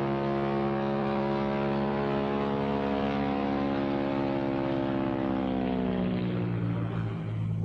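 Propeller airplane engine throttling back as the plane comes in to land, its pitch falling steadily for several seconds, then settling to a low steady idle near the end.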